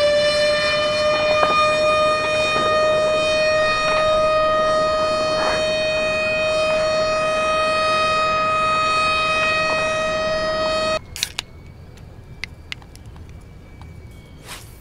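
A loud, steady siren-like tone with many overtones, sliding up slightly at first and then holding one pitch, cutting off suddenly about eleven seconds in. After it, only quiet outdoor ambience with a few sharp clicks.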